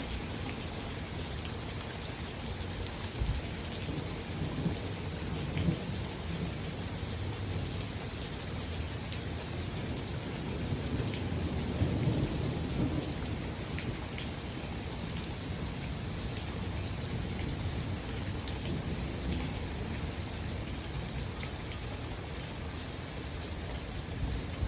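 Steady rain falling, with rolling thunder rumbling low underneath and swelling twice, about five seconds in and again around twelve seconds.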